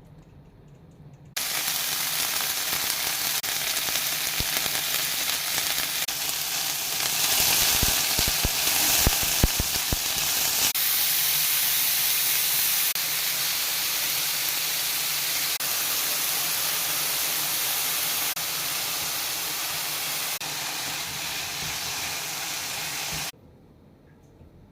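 Chicken frying in hot oil in a pan: a loud, steady sizzle that starts suddenly and cuts off near the end. It swells about seven seconds in, with several low knocks around eight to ten seconds in.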